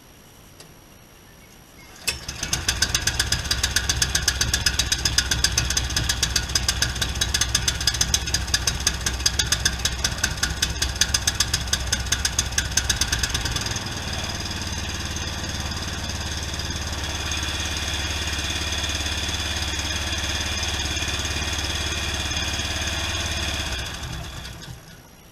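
Pressure washer's engine starts abruptly about two seconds in and runs, with a rapid even pulsing for the first ten seconds or so that then settles into a steadier note. It dies away near the end.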